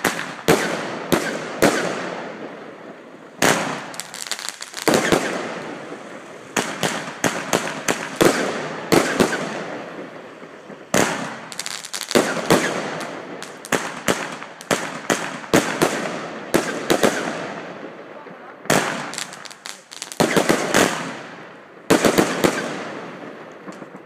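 Zena 'High Lighter' firework firing shot after shot. The shots come as sharp bangs, many in quick clusters, each trailing off in a fading tail, with short pauses between the groups.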